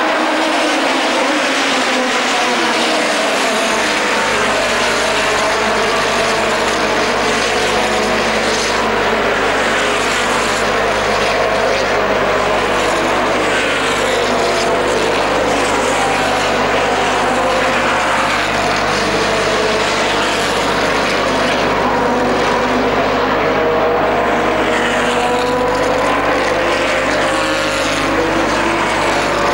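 Engines of a pack of open-wheel racing cars running at high revs, several pitches overlapping and rising and falling as the cars pass and accelerate.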